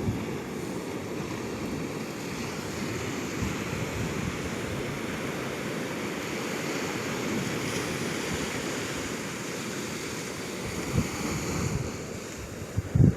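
Ocean surf breaking and washing up the beach in a steady rush, with wind buffeting the microphone in a few low thumps near the end.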